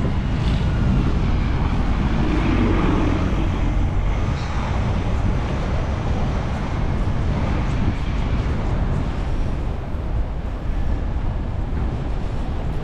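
Steady low rumble of wind buffeting the microphone, mixed with city street traffic.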